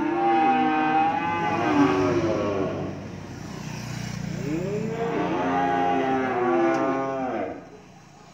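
Cream-coloured calf bawling in long, wavering moos as it is led off a truck: one call carries on into the first couple of seconds, and another starts around the middle and breaks off near the end.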